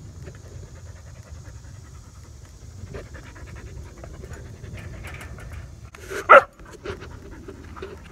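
A dog panting steadily, with one loud, short cry about six seconds in.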